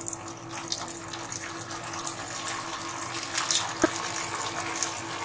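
Potato-and-semolina fingers sizzling and crackling in medium-hot oil in a frying pan, the sizzle slowly building as more fingers are dropped in.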